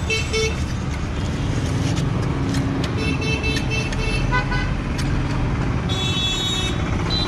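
Street traffic running steadily, with vehicle horns honking three times: briefly at the start, again about three seconds in, and longest near the end.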